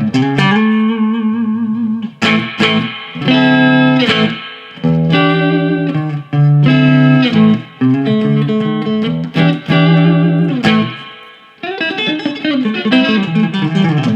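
Electric guitar playing a country chicken-pickin' lick, hybrid picked with pick and fingers, full of chromatic passing tones and string skipping. It is played as several quick phrases with brief gaps between them, some held notes shaken with vibrato.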